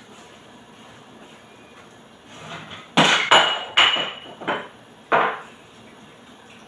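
A quick run of about five sharp knocks and clinks of kitchenware being handled, starting about three seconds in; the first few have a brief ringing tone.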